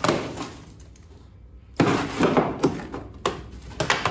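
Dry ice pellets crunching and clinking as a scraper blade is worked under them, prying frozen, brittle sound-deadening mat off a Datsun 240Z's steel floor pan. A quieter stretch about a second in, then a run of crunching with several sharp cracks.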